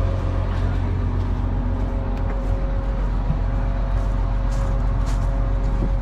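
Case IH 2388 combine's diesel engine running steadily: a constant low drone with a steady whine over it and a few faint ticks.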